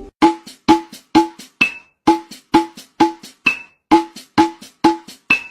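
Music: a percussion beat of pitched, wood-block-like knocks, about two a second, each followed by a softer knock.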